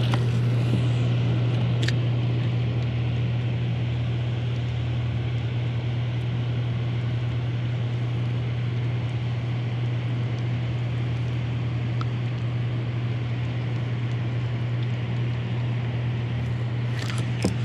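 Steady low electrical hum from the hydroelectric dam's generating equipment, held at one pitch throughout, over a constant rushing noise; a couple of faint clicks.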